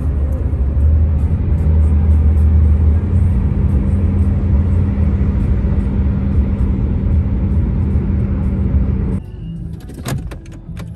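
Steady low rumble of a vehicle on the move, with music over it; about nine seconds in it cuts off suddenly to a quieter background with a few clicks.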